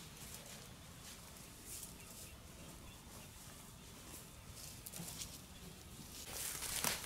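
Faint rustling and scraping as hands work loose soil and dry grass stems, getting louder near the end.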